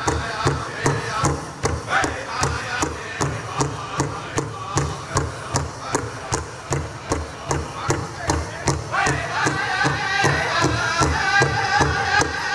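Powwow big drum struck in unison by several drummers, a steady beat of about three strokes a second. About nine seconds in, high-pitched singing voices join in over the drum.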